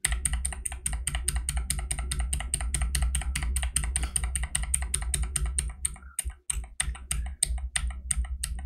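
A rapid, very even train of sharp clicks, about seven a second, over a low hum. The clicks start suddenly and grow sparser and break up after about six seconds.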